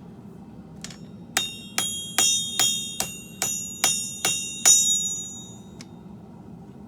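Hand hammer striking steel on an anvil while forging a blade: nine ringing blows at a steady rhythm of about two and a half a second, with a lighter tap just before and one after. Underneath is the steady low rush of a propane forge.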